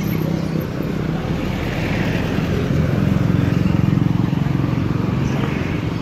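A motor vehicle engine running close by, steady, growing a little louder midway and then easing off.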